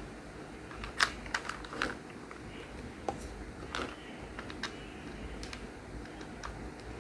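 Small plastic building-brick pieces clicking and tapping as they are handled and pressed together: a quick cluster of sharp clicks about a second in, then a few scattered clicks.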